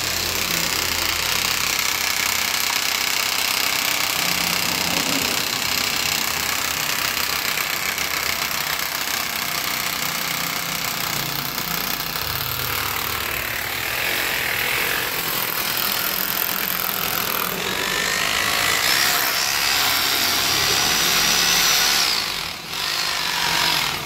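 Electric hammer drill running almost without pause while setting dynabolt anchors in a terrace column. A rising whine comes in a few seconds before the end, followed by a brief drop.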